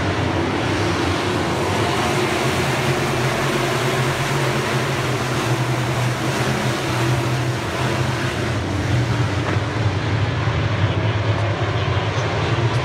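A pack of dirt-track modified race cars racing on the oval, their engines making a loud, steady roar from many cars at once.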